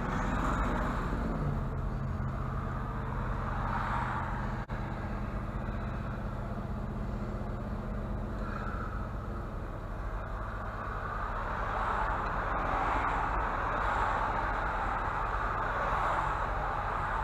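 Chevy Luv pickup driving: the engine note drops in the first second, then holds steady under a steady rush of road noise.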